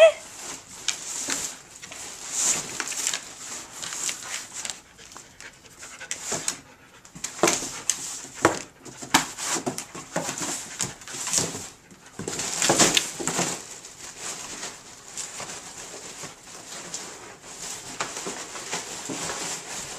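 Border collie panting while it rummages head-first through a cardboard box of plastic packing, the plastic crinkling and the cardboard rustling in irregular bursts as it digs for a ball. A brief rising whine sounds right at the start.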